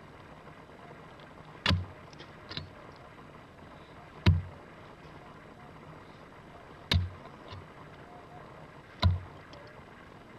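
A prospecting pick striking into hard, stony red soil: four blows about two and a half seconds apart, with a few softer knocks and rattles of loosened dirt and stones between them.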